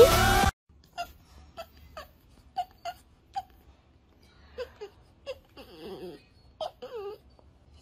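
Merle French bulldog whining: a string of short, high whimpers, roughly two a second, then longer wavering whines that fall in pitch. A pop song cuts off about half a second in.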